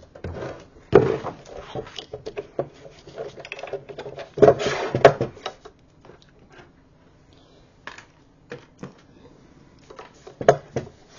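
A plastic paper trimmer being set down and a sheet of patterned scrapbook paper slid and positioned on it: knocks, clatter and paper sliding. The handling is busiest in the first half, with a louder knock and scrape about four and a half seconds in and only a few scattered taps after that.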